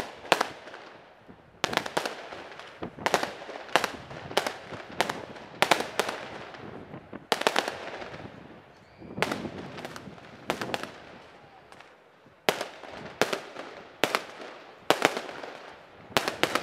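Aerial fireworks going off in quick succession: sharp bangs, about one to two a second, each trailing off in an echo, with short lulls between volleys.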